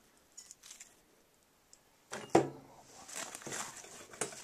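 Camera handling noise: a single knock about two seconds in, then rustling with small clicks.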